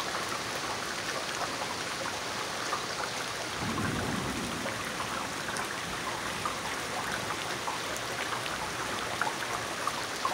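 Heavy thunderstorm rain falling steadily, with many drops ticking on nearby surfaces and a brief low rumble about four seconds in.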